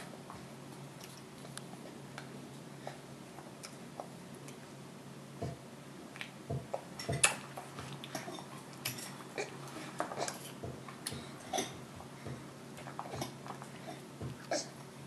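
A baby eating with his fingers from a high-chair tray: scattered small taps and clicks of hands on the tray with mouth smacks of chewing, few at first and busier from about five seconds in.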